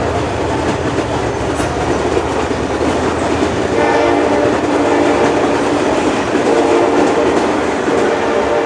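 Diesel train with a Wabtec locomotive passing close by, a steady loud rumble and rattle of wheels over the rails. A faint tone comes and goes in the second half.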